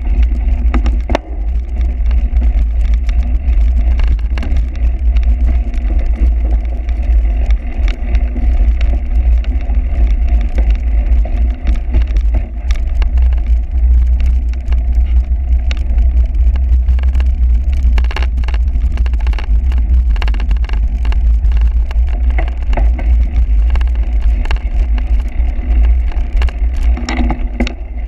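Cyclocross bike ridden over rough ground: frequent rattles and knocks over a heavy, steady wind rumble on the microphone.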